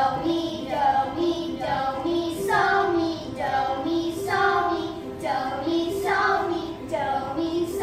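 Children singing a melody on stage, a run of held notes one after another.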